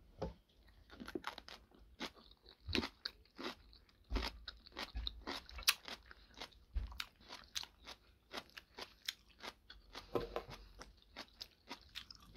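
A person chewing a mouthful of homemade napa cabbage kimchi, with an irregular run of crisp crunches, a few each second.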